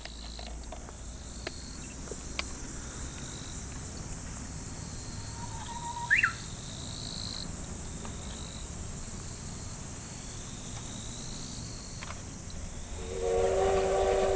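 Summer insects shrilling steadily in a rural setting, with one short rising bird chirp about six seconds in. Near the end a steady, chord-like sound of several held tones begins.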